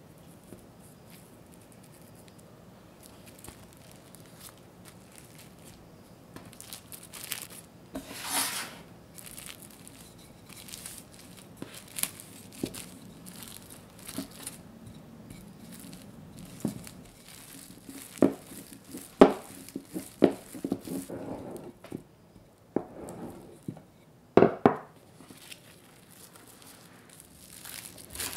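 Plastic cling film crinkling and rustling as dough is wrapped and rolled flat under a wooden rolling pin, with a few sharp taps and knocks in the second half.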